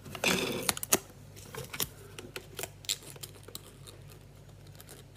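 Scissors snipping through the end of a 35mm film strip: a short cutting rasp near the start, then a few crisp clicks of the blades over the next couple of seconds, and quieter after that.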